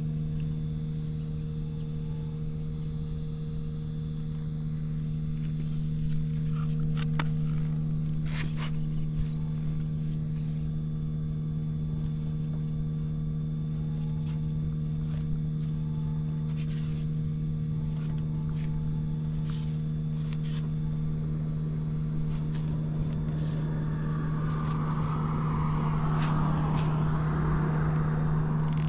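Suzuki Volty's single-cylinder engine idling steadily and quietly, with no abnormal noise. A few light clicks come through in the middle, and a rustling hiss rises near the end.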